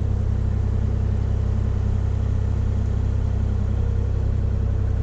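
Kubota KX040-4 compact excavator's diesel engine running steadily, an even low hum that does not change.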